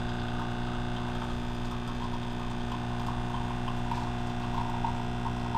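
Nespresso capsule machine's pump humming steadily as it brews espresso into a mug.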